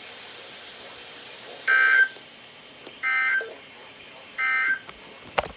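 NOAA Weather Radio SAME end-of-message data bursts: three short, identical warbling digital tone bursts about a second and a half apart, closing the weekly tone alert test. They sound over faint radio hiss, with a couple of sharp clicks near the end.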